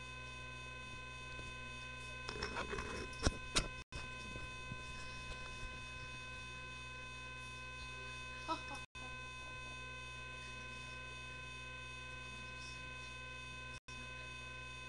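Steady electrical hum with several steady high-pitched tones, picked up by a webcam's microphone. A cluster of clicks and knocks comes about two to four seconds in and another near eight and a half seconds, as the webcam is handled and turned. The sound cuts out for an instant three times.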